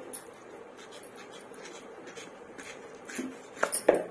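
A raw green mango being cut on a hansiya, a curved floor-mounted blade. The blade scrapes quietly through the firm fruit, and a few sharper clicks and knocks come near the end as the mango is split open.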